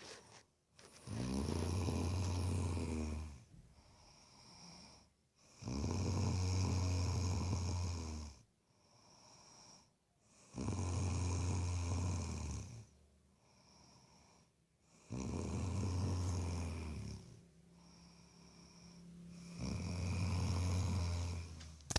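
Snoring in a steady sleep rhythm: five loud snores about every four and a half seconds, each lasting about two seconds, with quieter breaths between them.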